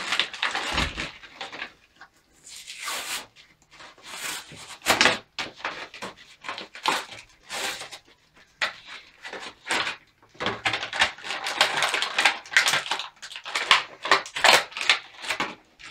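Mattel WWE action figure's clear plastic blister pack and cardboard backing being torn open and handled: irregular crackling and rustling of plastic and card in bursts with short pauses.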